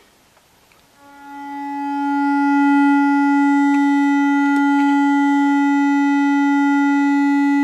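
Loudspeaker driven by a home-built 1970s-design class B transistor audio amplifier playing a sine-wave test tone, badly distorted into a harsh, buzzy, fierce steady tone with many overtones. It swells in about a second in and then holds steady. The distortion comes from the positive or negative driver transistor oscillating, so the sine wave is not amplified properly.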